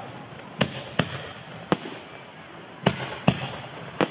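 Aerial fireworks shells bursting overhead: about six sharp bangs at irregular intervals over a steady background hiss.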